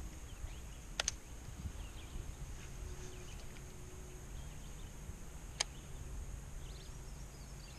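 Quiet open-air lake ambience: a low rumble, a faint steady high tone and faint bird chirps. Two sharp clicks break it, about a second in and again about five and a half seconds in.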